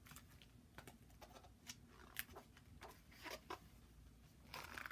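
Faint rustling and crackling of a picture book's paper pages being handled and turned: a scatter of small crackles, then a longer rustle near the end.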